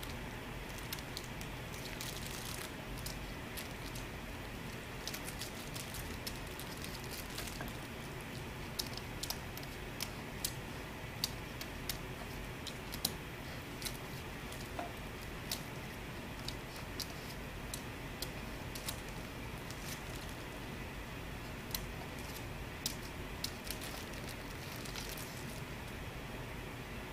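A shih tzu chewing and tugging at a hanging plastic frog toy on a coiled spring: irregular small clicks and taps over a steady background hiss, thickest in the middle and again near the end, stopping once the dog sits back.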